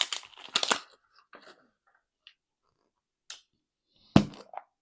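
Small plastic toy packaging crinkling and tearing in short, loud bursts, then a few faint rustles and one sharp knock about four seconds in.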